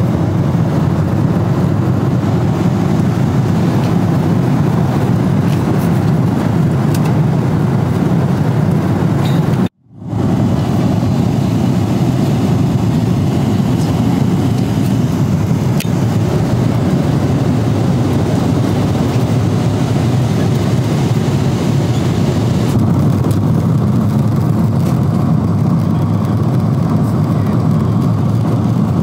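Airliner cabin noise in flight: a steady low whoosh of engines and rushing air. It cuts out for a moment about ten seconds in and sounds a little duller from about twenty-three seconds on.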